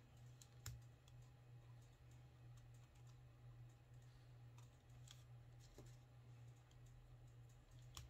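Near silence over a faint steady low hum, broken by a few light clicks of painted wooden clothespins knocking together as they are handled, the sharpest just under a second in.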